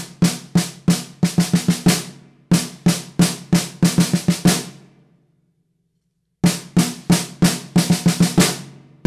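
Snare drum played with sticks: four even strokes followed by a quick five-stroke roll of double strokes, the pattern repeating. The playing cuts out for about a second and a half midway, then resumes.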